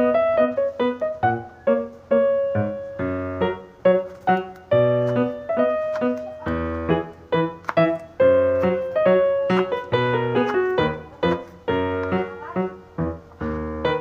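Background piano music: a melody of separate struck notes, each fading away, over low bass notes.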